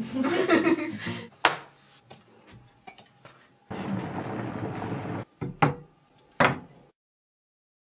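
Tea being made with an electric kettle and a mug: a sharp click, then about a second and a half of rushing water noise, then a few knocks of the mug being handled and set down.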